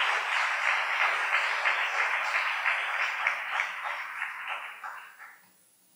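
Audience applauding, many hands clapping, the applause dying away about five seconds in.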